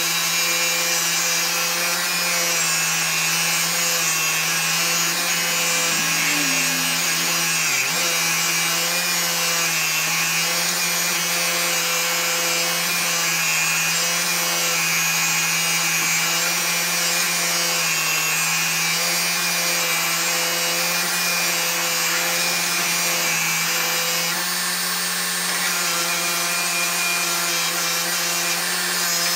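Bench grinder running with a wire wheel, a vise guide bar held against the wheel to scrub it clean. A steady motor hum sits under a constant scratching hiss of wire on metal.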